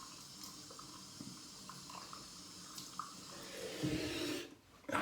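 Cold water running steadily from a tap into a sink for a post-shave rinse. It grows louder shortly before it cuts off about four and a half seconds in.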